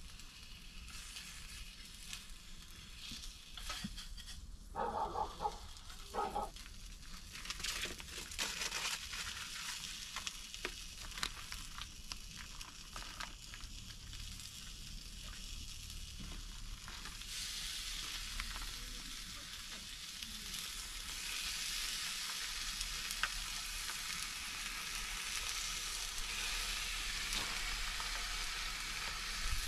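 Bacon frying in a pan on a Cadac gas camping cooker: a steady sizzle that grows stronger in the second half, with a few clicks and scrapes from a cooking utensil in the pan.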